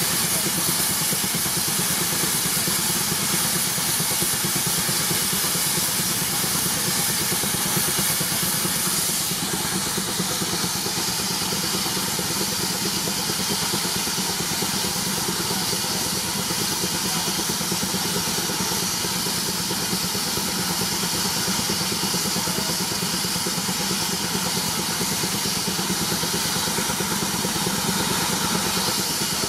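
Baker Uniflow steam traction engine working hard on the belt against a Prony brake, its exhaust beating in a rapid, even rhythm with a steady hiss of steam.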